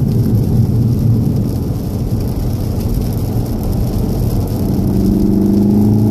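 Cabin sound of a VW Golf VII R with its 2.0-litre turbocharged four-cylinder off the throttle, giving a low rumble with tyre and road noise on wet tarmac as the car slows into a corner. Near the end the engine note comes back and climbs as the car starts accelerating again.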